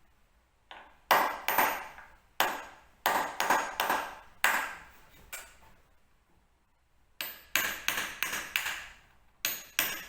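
Hammer striking a nail punch, metal on metal with a ringing ping on each blow, sinking nail-gun nails that were left standing proud. The strikes come in two runs of quick blows with a pause of about a second and a half between them.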